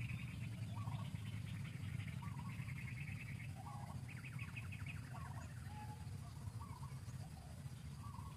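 Birds chirping, with rapid trilled phrases and short scattered calls, over a steady low rumble.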